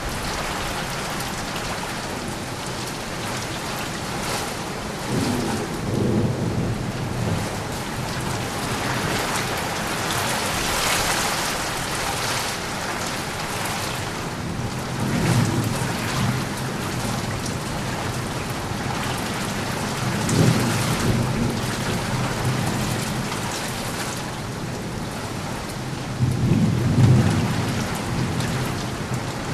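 Steady heavy rain falling, with rolls of thunder rumbling four times, about five seconds in, around fifteen and twenty seconds in, and loudest near the end.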